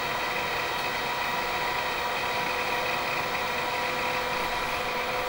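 SGI Personal IRIS 4D/35 workstation running steadily as it boots: an even whir of cooling fans with a few faint held tones.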